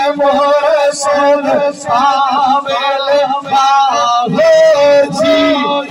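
Men singing a devotional naat into microphones, amplified through a sound system, the lead voice bending and holding long ornamented notes.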